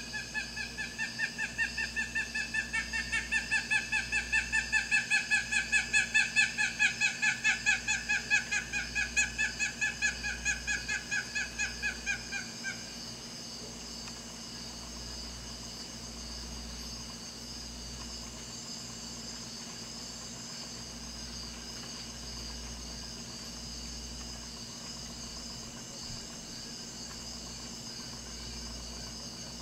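An animal call repeated about three times a second in a long unbroken series, growing louder and then stopping suddenly about 13 seconds in. A steady high-pitched insect chorus runs beneath it and carries on alone afterwards.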